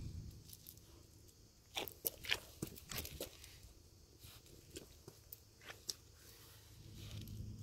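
Siberian husky puppy crunching and chewing at something on the gravel. A quick run of sharp crunches comes about two to three seconds in, then a few scattered clicks.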